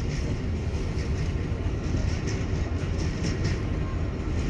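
New York City subway 7 train running along the track: a steady low rumble with scattered clicks of the wheels over the rails.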